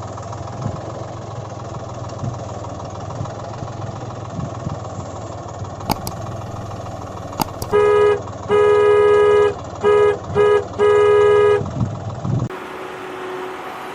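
A vehicle engine running steadily, then a horn honking in five toots of uneven length, one of them long, louder than the engine. Near the end the engine sound cuts off and a quieter steady hum is left.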